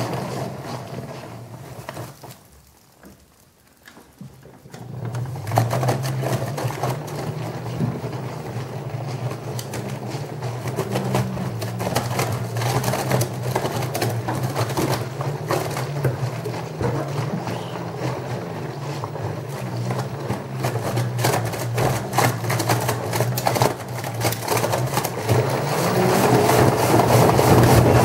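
LG Direct Drive front-loading washing machine tumbling wet laundry in its drum: a steady low motor hum with many small knocks and swishes of the clothes dropping. The sound dies down a couple of seconds in, then the drum starts turning again about five seconds in and keeps going.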